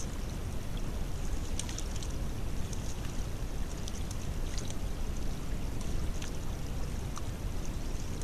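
Water running through a torn-down beaver dam, a steady rushing pour, with a few faint clicks scattered through it.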